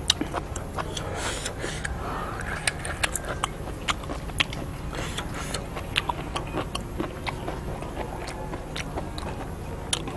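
A person chewing a mouthful of seafood salad close to the microphone: a scatter of sharp mouth clicks and smacks, irregular and a few each second, over a steady low background noise.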